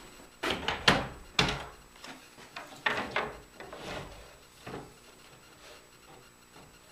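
Wooden workpiece and fence being handled on a table saw top with the saw switched off: a series of knocks and scrapes as wood is set down and slid into place. The loudest knocks come in the first second and a half, a few more follow around three and five seconds in, then it goes quiet.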